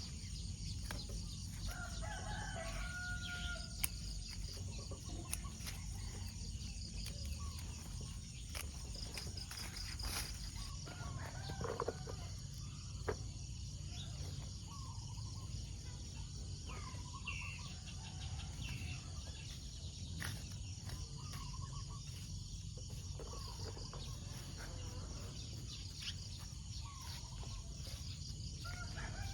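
Chickens calling and clucking, short calls scattered all through, over a steady high hiss and a low rumble.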